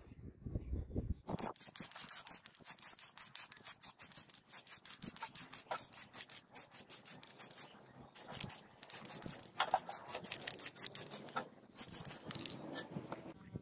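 Rapid scratching strokes, several a second, of something rubbed or scraped against a hard surface, with two short breaks in the second half.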